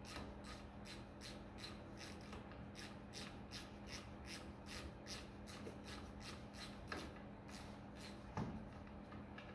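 Rhythmic scraping or rubbing strokes, about three a second, from hand work on a tractor's power steering pump, over a steady low hum, with a single knock near the end.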